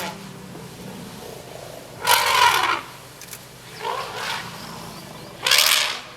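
African bush elephant calling: three loud, short calls about one and a half to two seconds apart.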